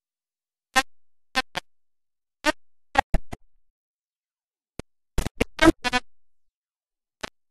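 Choppy, garbled audio: about a dozen short, sharp bursts of distorted sound in irregular clusters, about a second in, around three seconds in and around five to six seconds in, with dead silence cutting in between them.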